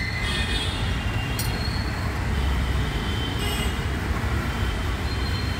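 Steady low rumble of street traffic, with a few faint short high tones over it.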